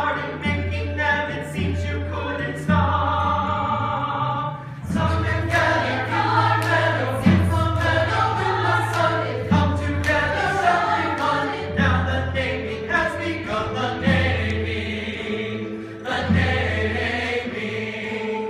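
A stage chorus of many voices singing a musical number, with instrumental accompaniment holding low sustained notes underneath.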